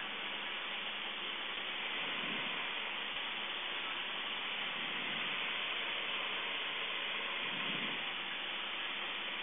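Steady rushing wind noise from a Cessna 152 in flight, heard on a camera mounted outside the airframe, with the engine's drone faint beneath it.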